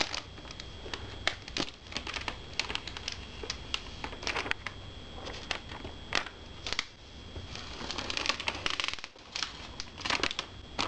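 Thin plastic protective film crinkling and crackling as it is peeled off a computer screen and handled, in irregular rustles and sharp clicks.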